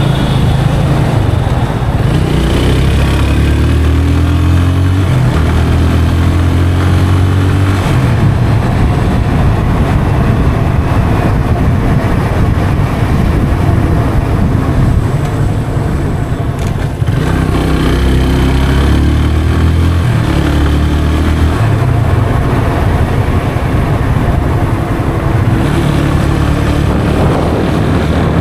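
Yamaha FZ 25's 249cc single-cylinder engine running under way through its stock exhaust, its note climbing in steps twice, as it does when the bike pulls up through the gears. Wind rushes over the action-camera microphone throughout.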